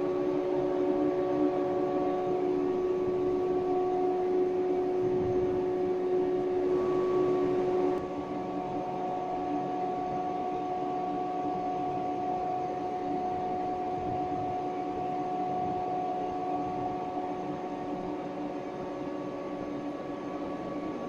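Standing KuMoYa 145 and 381-series electric train cars humming steadily, several fixed tones from their running on-board equipment. About a third of the way in one of the tones stops and the hum gets a little quieter.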